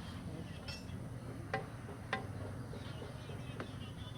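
Three sharp clicks, about a second and a half, two seconds and three and a half seconds in, over a steady low background hum, with faint high chirping.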